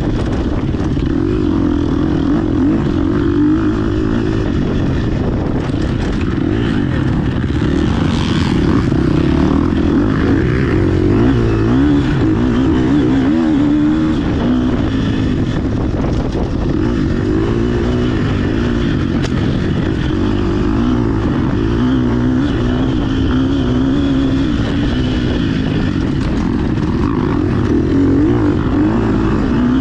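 GasGas EX 250F four-stroke single-cylinder dirt bike engine running hard off-road. Its pitch rises and falls as the throttle is worked, with wind and chassis rattle loud on the handlebar-mounted microphone.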